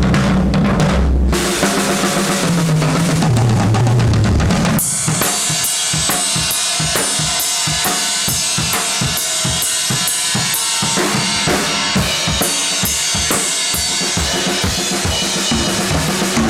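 Drum kit at a sound check. For the first five seconds or so, low held bass notes change pitch under a cymbal wash. Then the drums play a steady beat on their own, with kick and snare hits and regular cymbal strokes.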